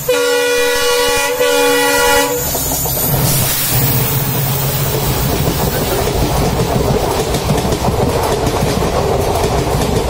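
Diesel locomotive air horn (an Indian Railways WDP4D) sounding one long blast of about two seconds, followed by the steady rumble and wheel clatter of a passing train close alongside, heard from a moving train.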